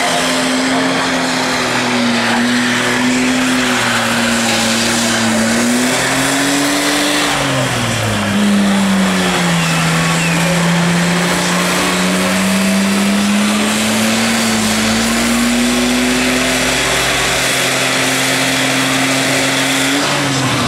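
BMW E30 3 Series doing a burnout: its engine held at high revs while the rear tyres spin and screech on the tarmac. The revs sag sharply about eight seconds in, climb slowly back, and drop again at the very end.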